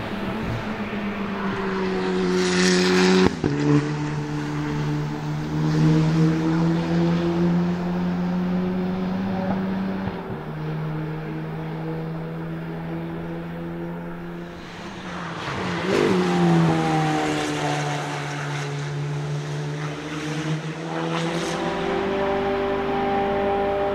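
Dallara Stradale EXP's turbocharged four-cylinder engine running hard on track, passing close by with a falling pitch about three seconds in and again around sixteen seconds in. The engine note steps in pitch at gear changes between the passes.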